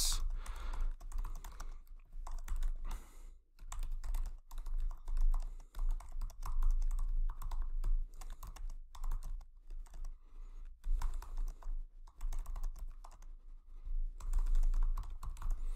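Typing on a computer keyboard: quick runs of key clicks with a few short pauses as a sentence is typed out.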